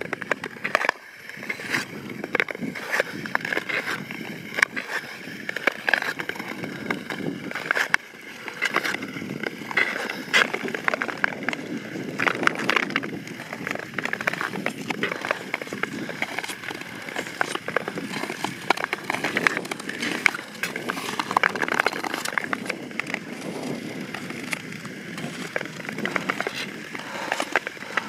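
Long-distance Nordic skate blades scraping and gliding on natural lake ice, stroke after stroke, with many short sharp scratching strokes.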